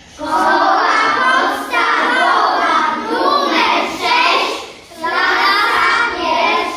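A class of young children voicing a phrase together in unison chorus, in several loud phrases with brief breaks, the longest break about five seconds in.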